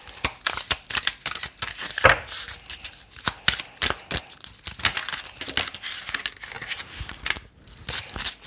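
A deck of oracle cards being shuffled and handled by hand: a dense run of quick papery snaps and rustles, with a sharper snap about two seconds in.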